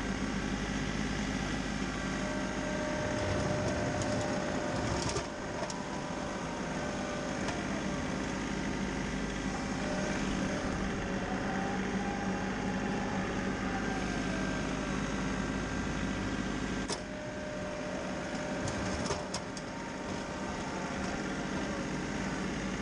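An engine running steadily, with a faint whine that rises and falls in pitch several times. There are a few sharp knocks, one about five seconds in and two more in the second half.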